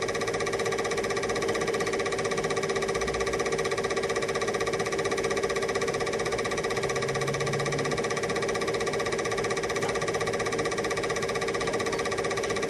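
8mm film projector running: a steady whirring hum with a fast, even mechanical rattle.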